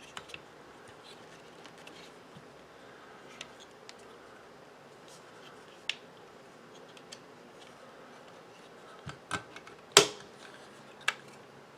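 Scattered small clicks and taps of plastic model-kit parts being handled and fitted together, with a sharper knock about ten seconds in, the loudest.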